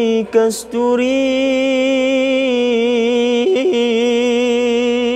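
A single unaccompanied voice chanting a Malay maulid recitation, drawing the word 'kasturi' out into one long, ornamented held note that wavers in pitch and breaks off near the end.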